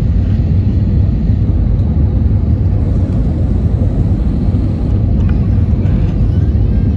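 Airliner cabin noise on approach: a loud, steady low rumble of jet engines and rushing airflow heard through the fuselage, with a faint steady hum.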